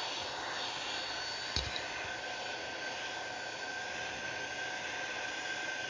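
Hot-air rework station blowing a steady hiss of hot air at low fan speed onto a laptop graphics chip, heating it to reflow its solder joints through the flux, with a faint steady high whine. A light click about a second and a half in.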